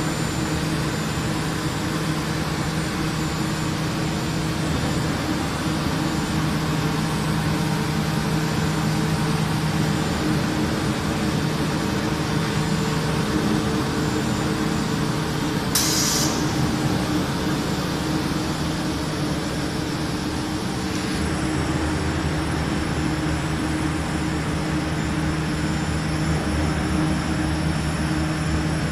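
ABA plastic film blowing machine running: the steady drone of its extruders and air-ring blower, with a steady low hum. A short hiss cuts in about halfway through.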